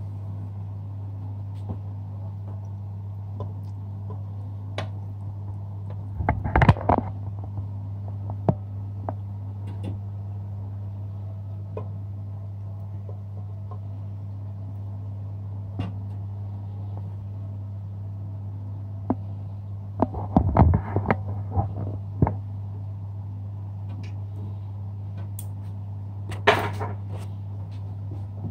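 Metal tongs clinking and knocking against an aluminium cooking pot as chicken wings are turned, in a few short clusters over a steady low hum.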